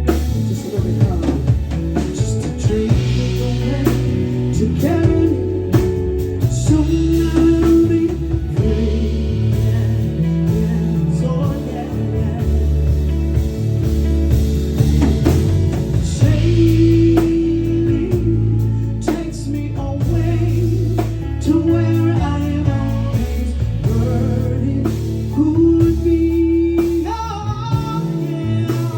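A band playing a soft-rock song with guitar and drums, with a lead vocal singing over it.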